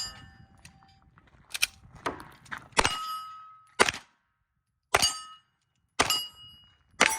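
About seven sharp shots roughly a second apart from a Glock 19 9mm pistol fired at steel targets. Several are followed by a short ringing tone from the struck steel plate.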